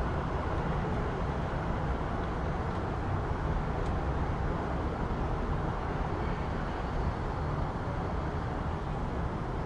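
City street ambience: a steady low rumble of road traffic, with a faint click about four seconds in.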